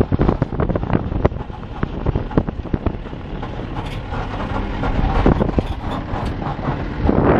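Safari jeep driving over a rough dirt track, its engine running under a steady rumble with frequent knocks and rattles from the bodywork.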